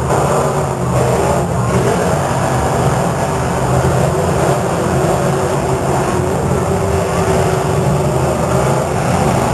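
Several demolition derby cars' engines running and revving together.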